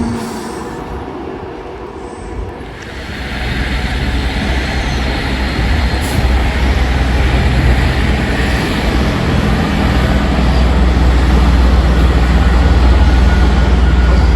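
Train passing close by on the tracks, its rumble building from about three seconds in and then holding steady and loud with a low droning hum underneath.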